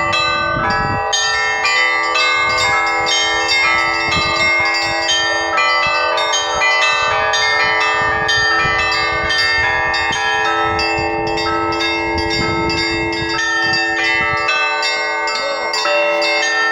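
Russian Orthodox church bells rung together: small bells struck in quick succession over larger bells, their tones overlapping and ringing on without a break.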